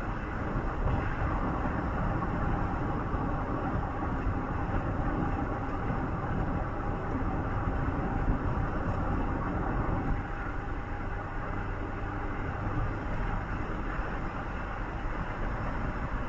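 Steady rumble and road noise of a moving vehicle, heard from inside, with a low hum and no sudden events.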